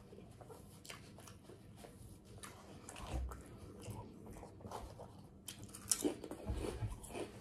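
Close-up mouth sounds of eating: chewing with scattered wet clicks and lip smacks as fingers are sucked and licked.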